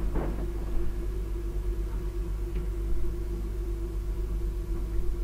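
Steady low hum with a constant mid-pitched tone over it, and a faint brief sound just after the start.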